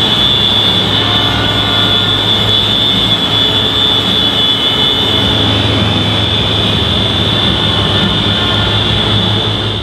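Many tractor and farm-machine horns sounding all at once in a large exhibition hall, a loud, steady, unbroken din: the traditional horn-sounding (Abhupen) that marks the close of the trade fair.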